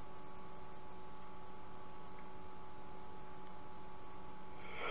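Steady electrical hum with a few faint constant tones over room noise. A short breath-like noise comes near the end.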